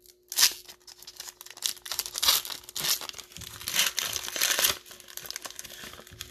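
Foil wrapper of a Panini Illusions basketball card pack being torn open and crinkled by hand. A run of crackling rips starts about half a second in and eases off after about five seconds.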